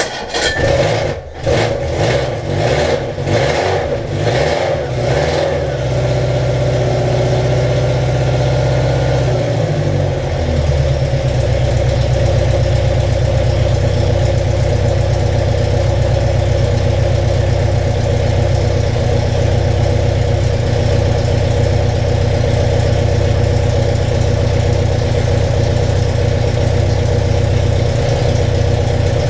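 Riley 12/4's newly rebuilt four-cylinder engine running, uneven and pulsing for the first few seconds, then settling into a steady fast idle. About ten seconds in the revs rise, and it holds a steady higher speed after that.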